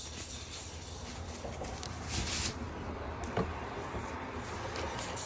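Thin plastic foam packing sheet rustling as it is pulled off a boxed steering wheel, with one louder rustle about two seconds in and a light knock a little after.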